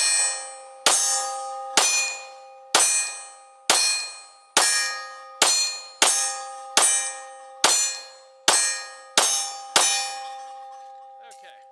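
Glock 23 Gen4 .40 S&W pistol fired about a dozen times at a steady pace of roughly one shot a second, each shot followed by the ringing of a struck steel target. The ringing fades out after the last shot.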